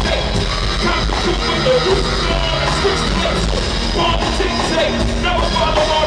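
Live hip-hop performance in an arena, heard through the PA from the crowd: a loud beat with heavy bass under rapped vocals.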